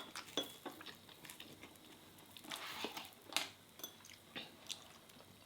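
Quiet kitchen and table handling noises: faint scattered clicks and soft rustles, with a short hissy rustle about two and a half seconds in.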